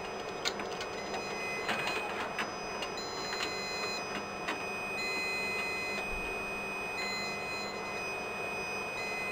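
Steady hum of running equipment with several high thin whining tones, some switching on and off, and a few light clicks of parts being handled.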